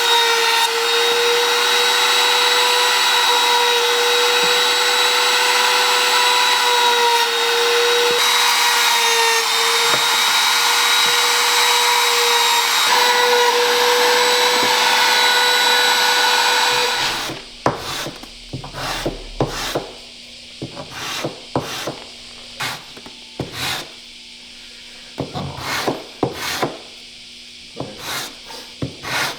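A handheld electric woodworking power tool runs steadily with a high whine, rounding over the corners of wooden stool legs. It stops after about seventeen seconds. Light scraping, rubbing and short knocks of the wood being worked and handled follow.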